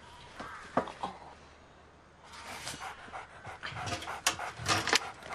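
A black-and-white collie panting while caught in barbed wire. Sharp snaps and rustling come in bursts, busiest in the second half.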